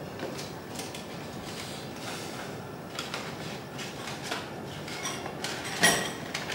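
Scattered small handling clicks and knocks over a steady hiss, with one sharper knock near the end.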